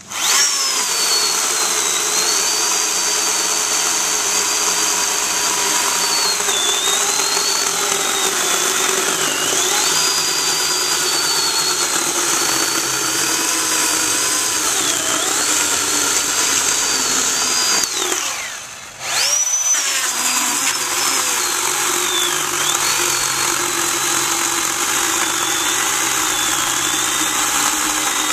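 Oregon PowerNow 40-volt battery chainsaw running and cutting through a small log, a steady electric whine that dips in pitch again and again as the chain bogs in the wood. About two-thirds of the way through it dies away for about a second, then spins back up and cuts on.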